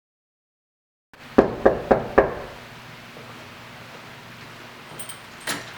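Four quick knocks on a door, after a second of silence. A couple of light clicks follow near the end.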